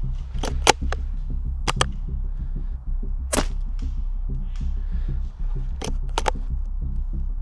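Sharp cracks of airsoft gunfire, some single and some in quick pairs, the loudest about three and a half seconds in, over a low steady pulsing drone.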